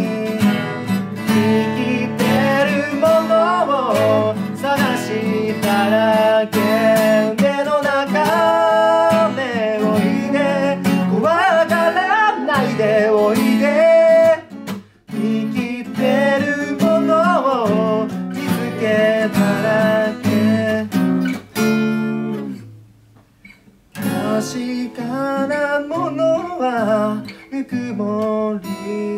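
A man singing with two acoustic guitars strummed and picked. The playing drops away briefly about halfway through and almost stops for a moment about three-quarters through, then picks up again.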